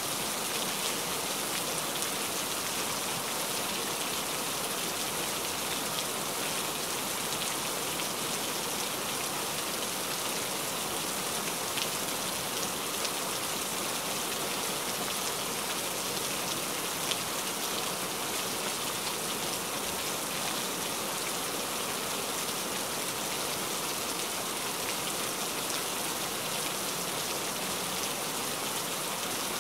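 Heavy rain falling steadily, a dense even hiss with scattered sharper drop hits.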